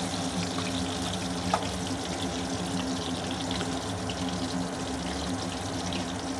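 Chicken pakora pieces deep-frying in hot oil: a steady sizzle with scattered faint crackles. A steady low hum sits underneath.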